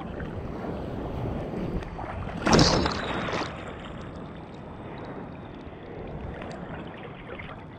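Shallow surf sloshing and wind buffeting a GoPro's microphone, with one loud splash of water about two and a half seconds in.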